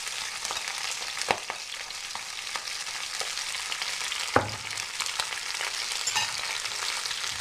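Freshly washed spinach frying in hot oil in a frying pan: a steady sizzling hiss with fine crackles. Two sharp knocks cut through it, a light one just after a second in and a louder one with a dull thud at about four and a half seconds.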